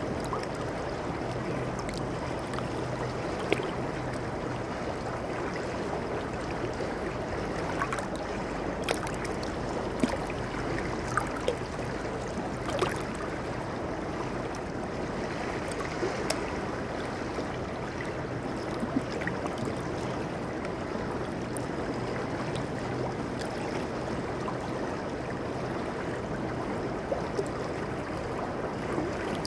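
Shallow river water running over rocks in a steady rush, with small splashes now and then.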